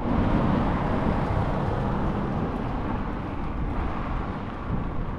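Outdoor street noise: a steady low rumble under a broad hiss, a little louder in the first couple of seconds.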